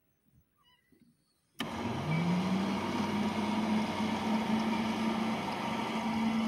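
Ride-on carpet extractor switched on about a second and a half in: its motors start up with a sudden rush of noise and a hum that rises in pitch, then run steadily and loudly.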